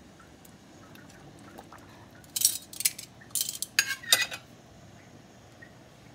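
Metal tongs clinking and scraping against a stainless steel cooking pot as pieces of pompano are set into the broth: a quick cluster of five or six clinks about two to four and a half seconds in.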